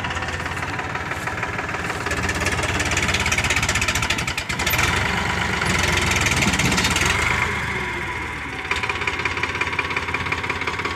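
Farmtrac Champion tractor's diesel engine working under load as it drags a heavy tree trunk, running louder through the middle and easing off about eight seconds in.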